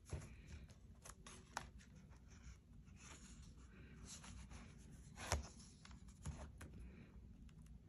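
Faint rustling and ticking of a concertina sketchbook's paper pages being handled, with a louder, short paper rustle about five seconds in as the next spread is turned.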